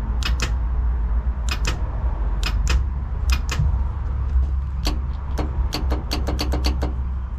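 Electric solenoids of a drag truck's trans brake and line lock clicking as the steering-wheel buttons are pressed and released, showing they are getting power and working. Paired clicks about once a second, then a quick run of clicks near the end, over a steady low rumble.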